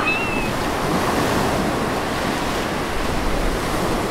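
Wave-pool water surging and churning in a steady rush of waves.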